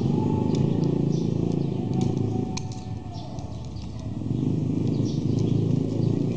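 A low engine-like rumble that dips about three seconds in and swells again, with short high chirps over it.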